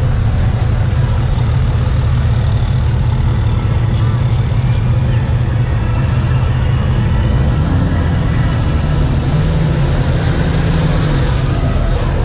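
Lifted pickup truck engines running as the trucks idle and creep past close by, a steady deep rumble that swells slightly in the second half.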